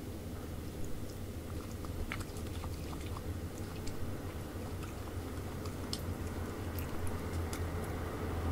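Brushtail possum chewing apple: scattered small, crisp clicking bites over a steady low hum.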